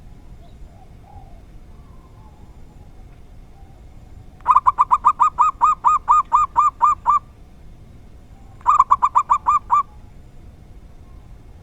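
Zebra dove (perkutut) cooing. It gives a run of about fifteen quick, evenly spaced coos lasting nearly three seconds, then a shorter, faster run of about eight.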